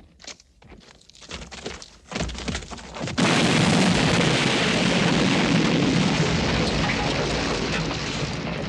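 Film sound effect of a dynamite explosion: after a few scattered knocks, a sudden loud blast about three seconds in that carries on as a dense, heavy rumble for the rest of the time.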